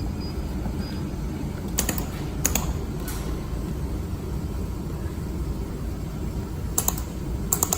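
Mold laser welding machine with its steady low hum and a few short clusters of sharp clicks, as it is worked to raise the welding power.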